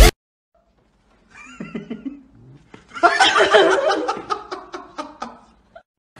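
A person laughing, starting about a second in and going on in a run of short repeated bursts.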